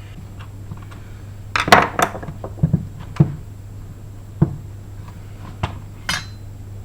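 Metal tools clinking and knocking against the cheap aluminium casing of a Silverline belt sander as it is prised apart. It is a run of separate sharp metallic clicks and knocks, the loudest about two seconds in.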